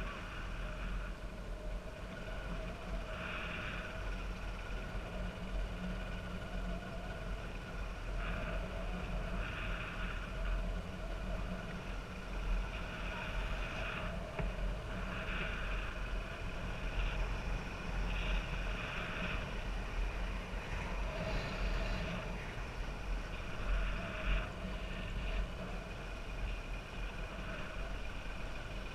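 A vehicle engine running steadily while moving, with a constant low rumble.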